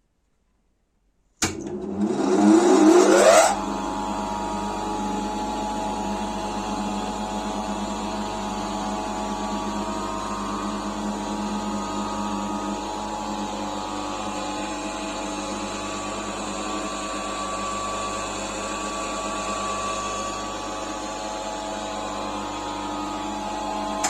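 Restored bench grinder's electric motor switched on about a second and a half in, its whine rising over about two seconds as it spins up, then running steadily at speed. Near the end it is switched off and the pitch starts to fall as it coasts down.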